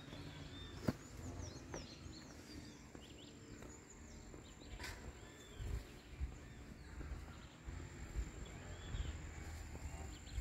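Many small birds chirping in short, quick calls over a low rumble of background noise, with a steady high-pitched whine underneath. A sharp click comes about a second in, and another near the middle.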